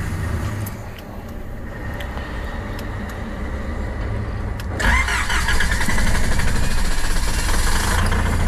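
Small car's engine cranked on the starter about five seconds in, with the accelerator held down, firing and running roughly as it struggles to start in thin high-altitude air at about 3200 m. A few faint clicks come before it.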